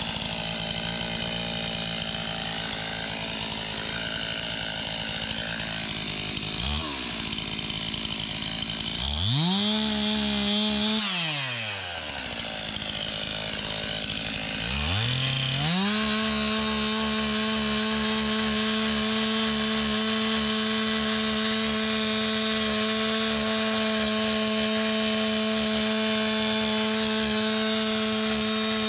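Gas chainsaw revved up twice, briefly and then for about two seconds, then brought up about fifteen seconds in and held at a steady full throttle, cutting lengthwise through a log in a freehand chainsaw mill cut.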